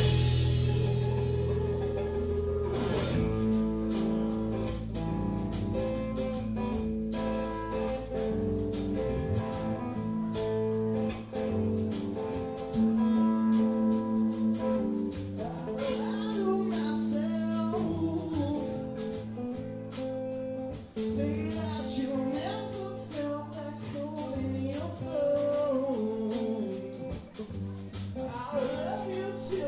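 Live rock band playing: electric guitar, bass guitar and drum kit. A loud chord rings out and fades at the start, then the drums come in with steady strokes about three seconds in, under sustained guitar notes.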